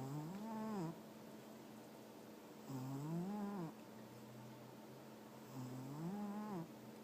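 A sleeping domestic cat snoring: three pitched snores about three seconds apart, each lasting about a second and rising then falling in pitch.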